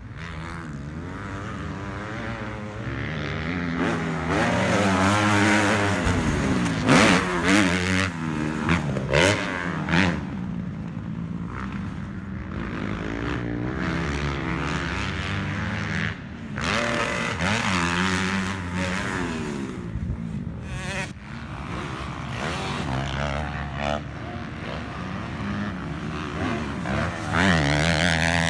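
Motocross dirt bike engines revving up and dropping back again and again as the bikes ride the track, several engines overlapping with pitch rising and falling, loudest in a few sharp revs about a quarter of the way in.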